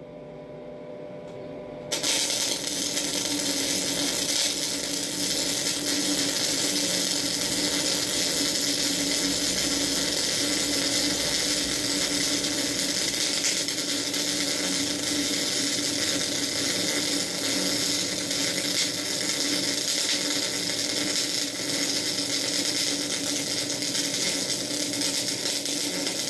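MIG welder arc burning steadily as a bead is run along a steel plate: the arc strikes about two seconds in and holds a continuous, even crackling hiss with a steady low tone underneath.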